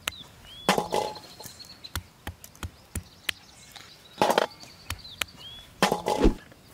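Chestnuts being struck with a hand-held stone against a rock to crack their shells: a string of sharp, irregular knocks and taps, with three louder clusters of blows about a second in, past the middle and near the end.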